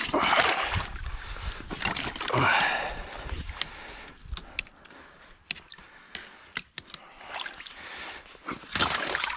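Shallow creek water splashing and sloshing as steel trap-setting tongs work the springs of a body-grip beaver trap, with scattered sharp metal clicks and scrapes. The splashing is loudest near the start and again about two seconds in.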